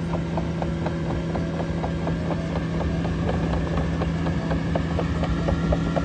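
Cat AP655F tracked asphalt paver driving slowly: its diesel engine runs with a steady drone, over a rapid string of metallic clicks and rattles from the running gear as it moves.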